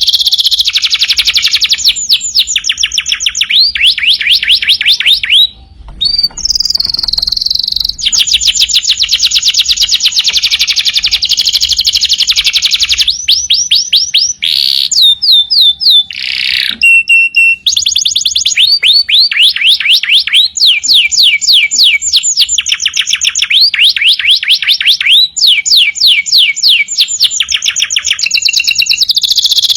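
Domestic canary singing loudly and continuously in fast trills. Each trill is a rapid run of one repeated whistled note, many sweeping downward, and the bird switches to a new trill every second or two.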